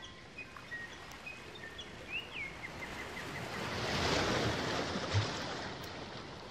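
Outdoor nature ambience: small birds give short high chirps, one of them sliding down in pitch. A rush of noise swells and fades a little past the middle.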